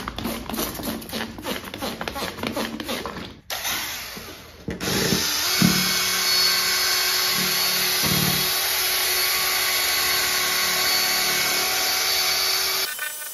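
A trigger spray bottle squirting water repeatedly onto a headlight lens, then a Milwaukee cordless drill spinning a 3000-grit foam sanding pad steadily over the wet lens. The drill starts about five seconds in and stops suddenly just before the end.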